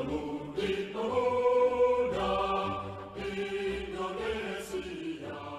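Intro music of slow, sustained chords with a choir-like sound, the notes changing about once a second.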